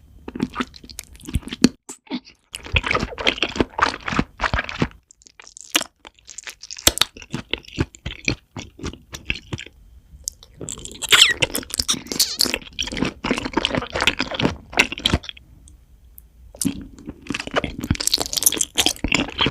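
Close-miked crunching and chewing of food, coming in several bouts of a few seconds with short pauses between them.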